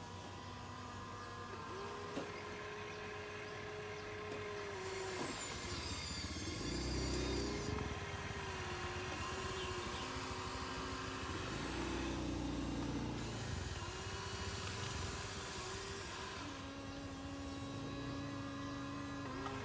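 Electric motors of a Huina 1593 RC excavator whining as it works, the pitch stepping up and down as its motions start and stop, with stretches of louder high hissing noise.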